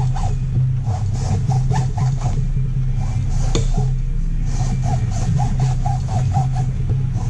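Hacksaw cutting through the metal can of an aircraft oil filter to open it for inspection of the paper media: quick back-and-forth rasping strokes, about three or four a second, with a short break midway. A steady low hum runs underneath.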